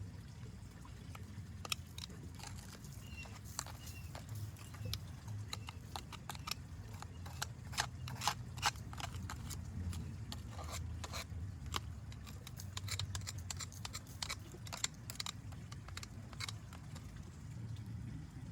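Scattered clicks, crunches and scrapes of hands working on a pond pump installation, thickest about halfway through, over a low steady rumble.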